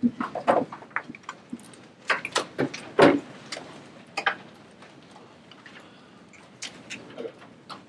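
Handling noise as papers and a laptop are moved about on desks: irregular sharp knocks and clicks with paper rustling. The loudest knock comes about three seconds in.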